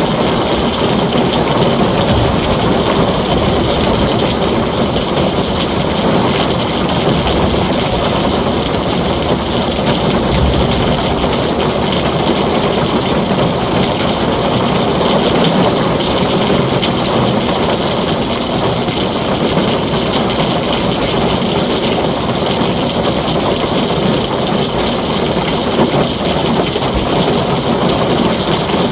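Heavy rain falling steadily on a tin roof, a dense unbroken hiss and patter.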